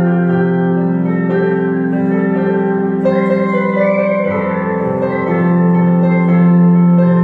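Human whistling carrying a song melody over sustained chords played on a digital piano; the whistled line rises and falls in pitch, clearest a few seconds in.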